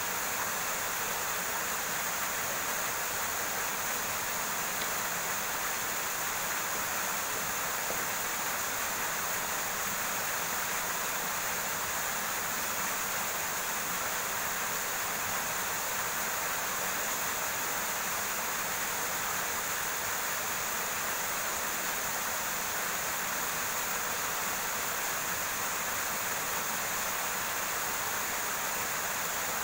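River water running over rocks: a steady, even rushing with no break.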